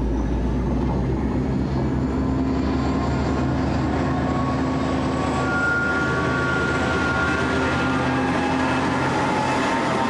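Two EMD diesel-electric freight locomotives, QUBE G-class G532 leading X-class X31, running under power as they approach and pass close by. It is a steady, loud engine drone with wheel and rail noise, and a higher whine comes in about halfway through as the lead unit goes by.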